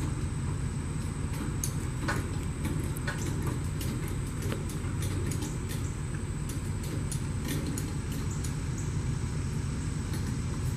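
A steady low engine rumble, level and unchanging, with scattered light clicks and ticks throughout and a faint steady high whine above it.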